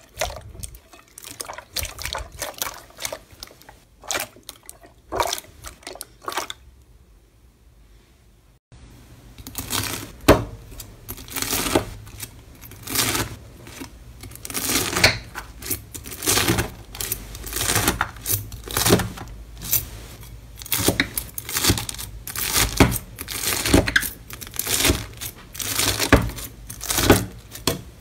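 Clear glittery slime squished and pulled by hand, a scatter of wet sticky clicks and pops. After a short lull, a knife scoring a block of crunchy bead slime gives a dense run of sharp crisp crackles and crunches.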